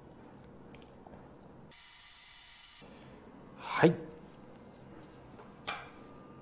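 Faint soft handling sounds of chopsticks turning marinated pork belly slices on a ceramic plate, with one sharp click of the chopsticks against the plate near the end, after which the plate rings faintly.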